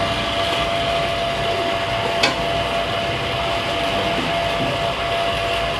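Electric refrigeration vacuum pump running steadily, evacuating a split air conditioner's refrigerant pipes: a constant motor hum and hiss with a thin steady tone, and a brief click about two seconds in.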